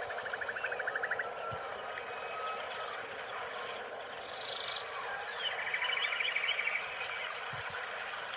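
Rainforest ambience of several birds calling. A rapid trill comes twice, near the start and again past the middle, with high arching whistles and thin lower whistles, over a steady background hum.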